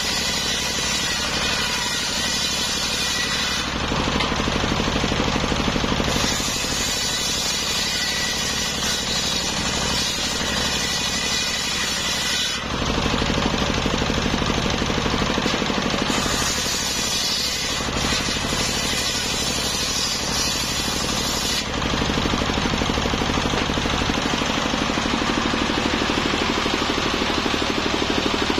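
Belt-driven table circular saw ripping a sengon log into boards. The blade cuts through the wood in three long passes, and between them and near the end it spins free over the steady drone of its drive.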